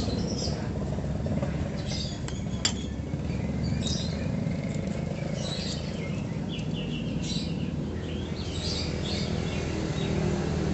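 Small birds chirping in short, scattered bursts over a steady low hum, with one sharp click a little under three seconds in.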